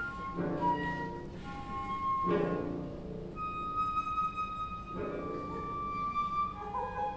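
Free-improvised chamber music: a flute plays broken notes and then holds long, steady high tones, while lower instruments come in with three short clusters of sound underneath.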